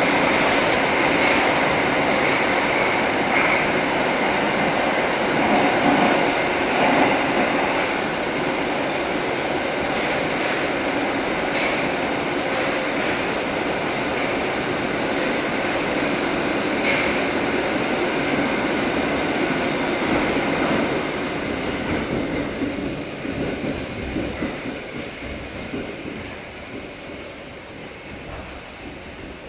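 Metro train heard from inside the car running through a tunnel: a steady rumble and rail noise with a thin wheel squeal and a few clicks over rail joints. In the last third it grows gradually quieter as the train slows into a station.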